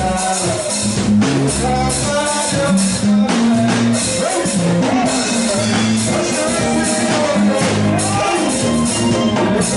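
Live gospel praise music: a man singing lead into a microphone with women's backing vocals, over a drum kit and guitar.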